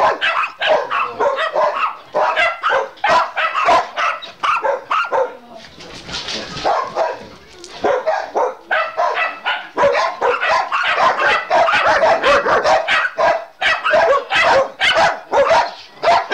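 Several dogs barking loudly and rapidly, their barks overlapping in quick runs, with a short lull about six seconds in.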